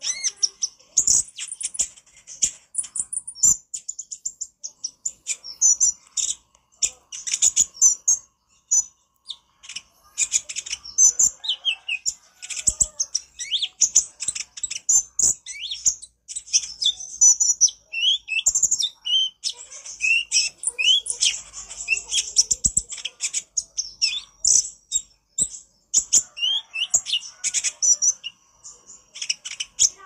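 Male Van Hasselt's sunbird (kolibri ninja) singing a fast, high-pitched chattering song of rapid ticking notes and short sweeping whistles, in long bursts with brief pauses.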